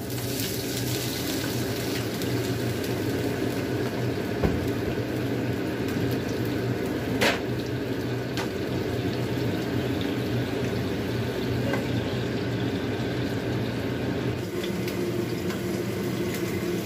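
Food cooking in a pan on the stove: a steady bubbling, sizzling hiss over a low hum. There is a sharp knock about four and a half seconds in and a short clatter about seven seconds in.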